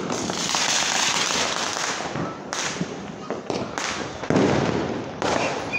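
Diwali fireworks and firecrackers going off around the city: a dense crackling for the first couple of seconds, then a series of separate sharp bangs, the loudest about four seconds in.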